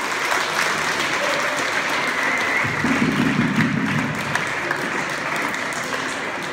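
Audience applauding steadily, with voices mixed in that briefly grow louder about three seconds in.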